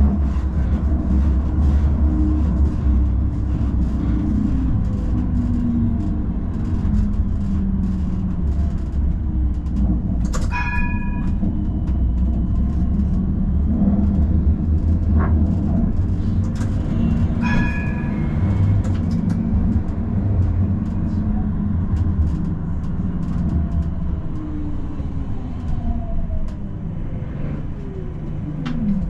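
Tram running along the track: a steady low rumble of steel wheels on rails. A short bell-like ring sounds twice, about seven seconds apart. Near the end, a motor whine falls in pitch.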